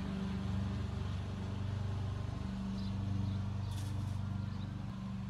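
Ice cream truck's engine running with a steady low hum. Faint high chirps come over it around the middle.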